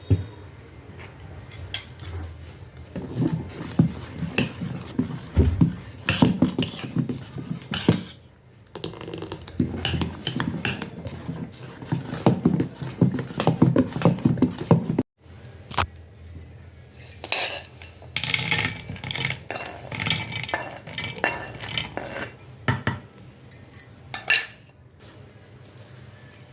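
Kitchen utensils and cookware clattering and clinking: steel spoons, plates and pots knocked and scraped in irregular handling, with an abrupt break about halfway through.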